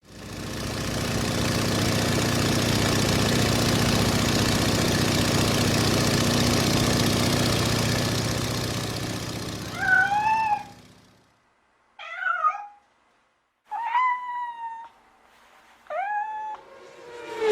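A steady, noisy sound with a low hum fades out after about ten seconds. Four short rising animal calls follow, about two seconds apart.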